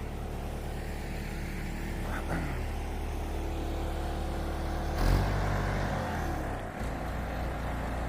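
Backhoe's diesel engine running steadily, with a sudden change in note and a jump in loudness about five seconds in.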